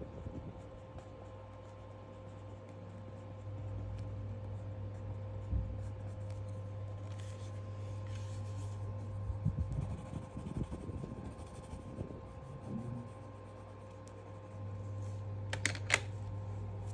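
Light rubbing and scratching on sketchbook paper from hand and coloured pencil, over a steady low hum, with a couple of sharp clicks near the end.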